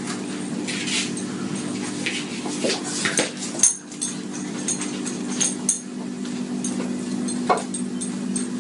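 Golden retriever puppy's claws and paws scrabbling and clicking on a tiled floor and mat as she spins after her tail: a scatter of sharp clicks and taps over a steady low hum.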